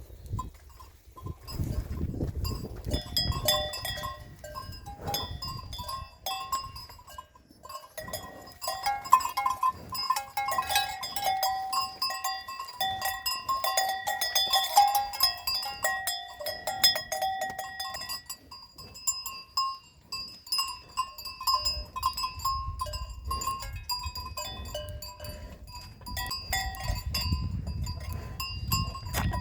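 Cowbells on grazing cattle clanking and ringing irregularly, busiest in the middle. There is a low rumble near the start and again near the end.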